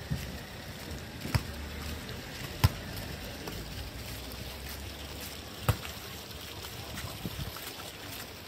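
Steady outdoor background noise with a low rumble, broken by three sharp knocks, the loudest about two and a half seconds in, and a few fainter ticks.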